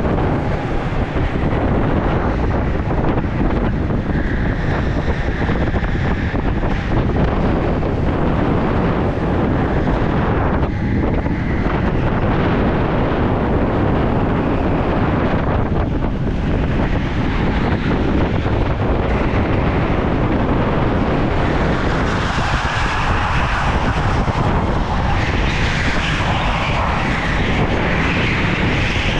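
Go-kart at speed heard from onboard, a steady rush of wind on the microphone over the kart running.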